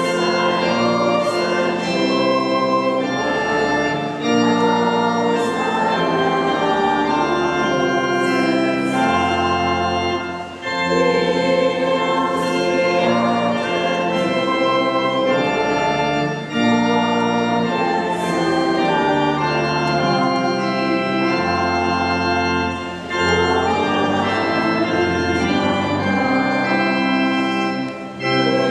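School orchestra of cellos, violins and trumpet playing a slow hymn-like piece in held chords over a steady bass, the phrases breaking off briefly about every six seconds.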